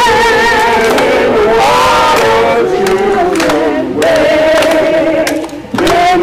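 A group of men and women singing together unaccompanied, long notes held with a slight waver and sliding between pitches.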